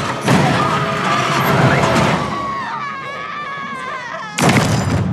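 Film soundtrack: a woman screaming over dramatic score, her scream wavering for about a second and a half, then a sudden heavy thud about four and a half seconds in as a falling body hits the ground.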